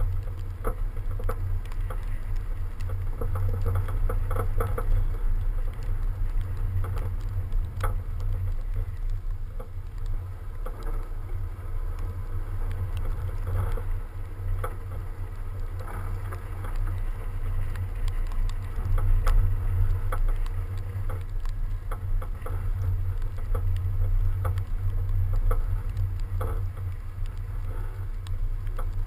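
BMW 335d driving over packed snow, heard through a camera mounted on the outside of the body: a steady low rumble of wind buffeting and tyres on snow. Scattered sharp ticks of snow and ice are thrown against the bodywork.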